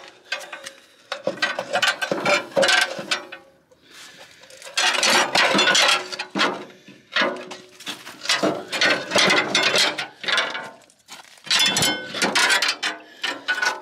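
Ratchet spanner clicking in quick runs of a second or two at a time, with short pauses, as the bolts holding the hydraulic pump's tank to the engine crane's housing are wound out.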